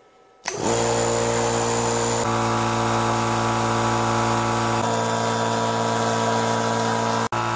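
A Vevor 24-litre oil-free air compressor starts about half a second in and runs steadily, its twin-head pump and motor giving a hum over a hiss as it fills the tank. The tone jumps abruptly a few times.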